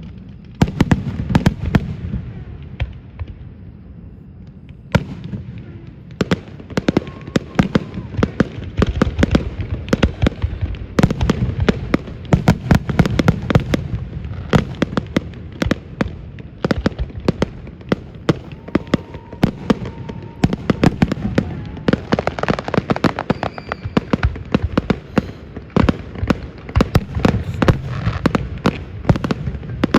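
Aerial fireworks finale: a dense barrage of sharp bangs and crackling reports. The barrage thins for a few seconds near the start, then turns rapid and nearly continuous from about five seconds in.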